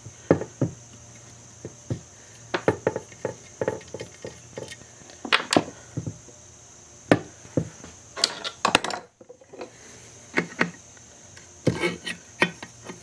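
Irregular light clicks and taps of hand tools and metal parts against a Briggs & Stratton engine's sump cover as the oil pump cover plate is worked loose and lifted off.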